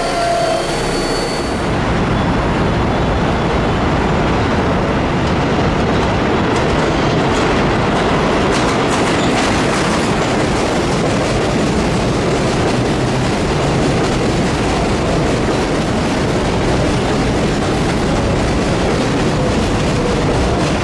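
R188 subway train running along the track: a steady, loud rolling noise of wheels on rail, with a thin whine fading out in the first second.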